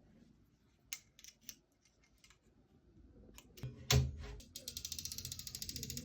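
Handling of a rotating laptop stand: scattered clicks and knocks, a heavier thump about four seconds in, then a quick, even ratcheting of about eight clicks a second as the stand is adjusted.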